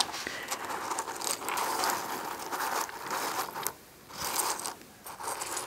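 Crinkly plastic packet of sunflower seeds being rustled and handled up close. One long stretch of crinkling, then two shorter bursts near the end.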